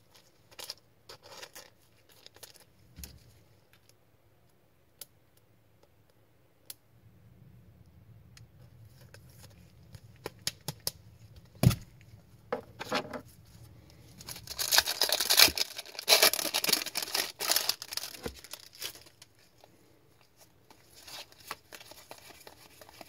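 A trading-card pack being handled and opened: scattered light taps and rustles, one sharp tap a little before halfway, then several seconds of loud crinkling and tearing as the pack's wrapper is ripped open, and cards rustling near the end.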